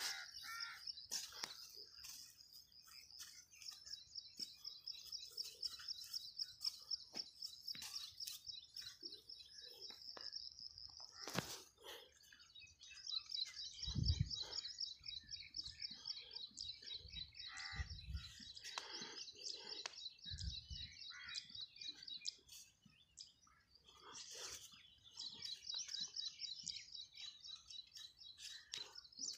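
High-pitched, rapidly pulsing chirping that runs almost without a break, pausing briefly about a third of the way in and again near three-quarters. A few low thuds come about halfway through, the loudest of them near the middle.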